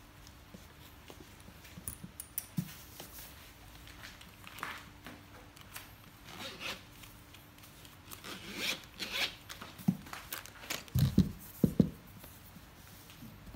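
Zipper on a hard-shell camera carrying case being pulled in several short scraping strokes, followed by a few dull thumps as the case is handled on the table.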